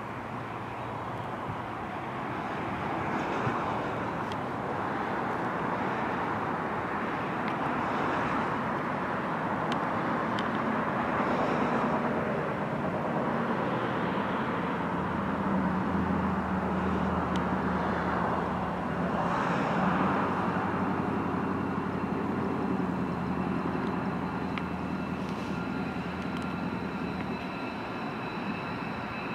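Jet aircraft engines running on an airfield: a steady rush of engine noise, with a high whine coming in near the end.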